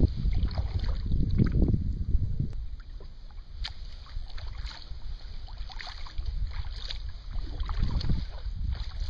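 Kayak paddle strokes: the blades dipping and splashing with dripping water, over gusts of wind rumbling on the microphone that are strongest in the first two seconds and pick up again near the end.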